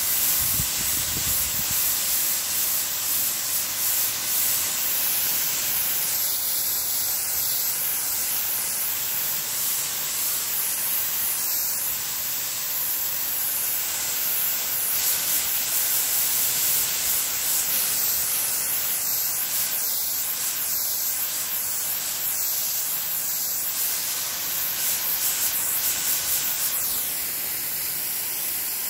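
Fine water spray from a watering nozzle, a steady high hiss as the mist is played over young trees and dry mulch.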